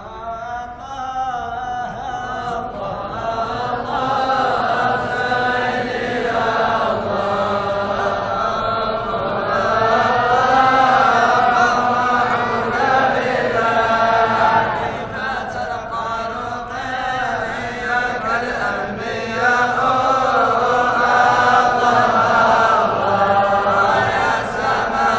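Many men's voices chanting together in unison, a slow, sustained religious chant that swells in over the first few seconds and then holds.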